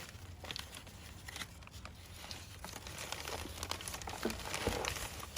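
Packaging crinkling and rustling in irregular small crackles as hands unwrap a shipped orchid.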